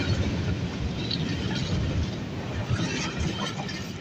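Freight train of container flat wagons passing close by: steady rumble of steel wheels on the rails with repeated clacks, easing slightly near the end.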